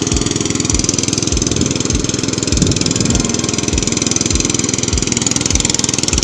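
Hand tractor (kuliglig) engine running steadily, with a low thud repeating a little under twice a second.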